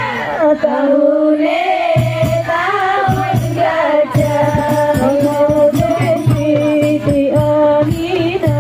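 Devotional song sung over loudspeakers, with a steady low note and regular hand-percussion beats. The beats and low note drop out briefly near the start and come back about two seconds in.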